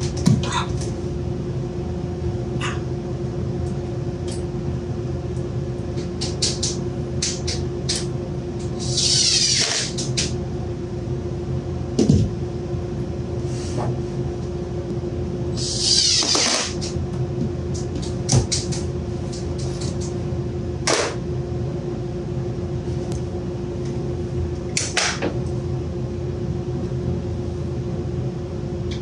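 Scattered clicks and knocks of wood and hardware as a plywood cabinet drawer is fitted. Twice the drawer slides in or out on its runners with a longer rasp that sinks in pitch. A steady shop hum runs underneath.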